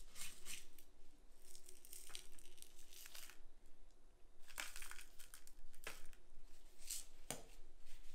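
Disposable plastic gloves crinkling against small plastic containers as powder is shaken out of one. The sound comes in a series of short, scratchy rustles about a second apart.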